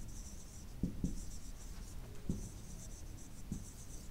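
Marker pen writing on a whiteboard: short squeaky, scratchy strokes in quick groups as letters are formed, with a few soft knocks of the pen against the board.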